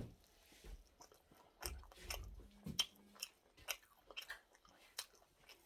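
Close-up eating sounds: chewing and crunching of food, heard as an irregular string of sharp clicks and crackles from the mouth.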